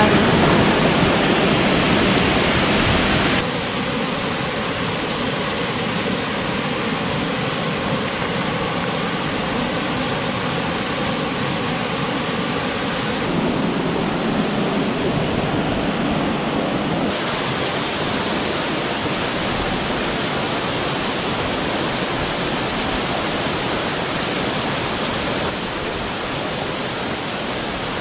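Steady rushing of a jungle waterfall, its tone shifting abruptly a few times.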